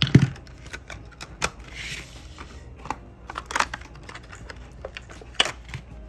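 Small plastic and glass nail-product containers being handled on a table: a series of separate sharp clicks and knocks, with a brief rustle about two seconds in.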